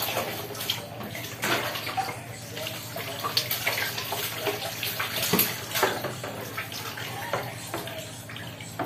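Water poured from a plastic dipper over a small dog standing in a bucket, splashing and running off into the water below in irregular gushes several times.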